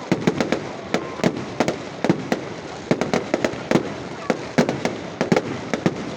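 Fireworks and firecrackers going off in a rapid, irregular string of sharp pops and bangs, several a second, over a steady crackling hiss.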